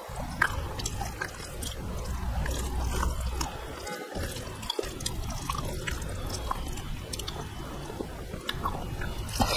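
Wet squishing and small sticky clicks of rice and potato curry being mixed and squeezed by hand on a plate, over a steady low rumble.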